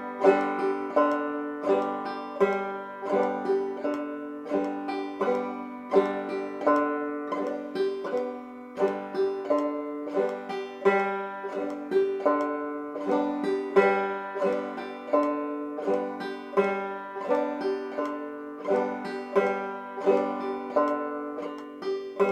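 Five-string banjo played clawhammer style: the basic frailing strum, bum-ditty, on open strings with no chords fretted, repeated in a steady even rhythm at a medium practice tempo.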